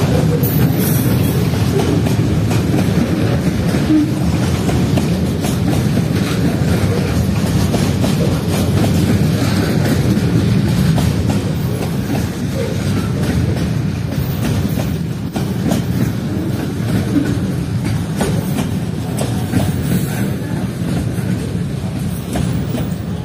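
Container wagons of a long freight train rolling slowly past over the rails: a steady heavy rumble with scattered knocks and clanks from the wheels, easing slightly about halfway through.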